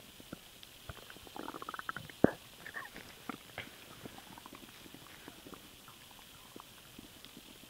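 Stomach gurgling from swallowed air: a quick run of bubbling pops about a second in, one sharp loud pop just after two seconds, then scattered smaller gurgles.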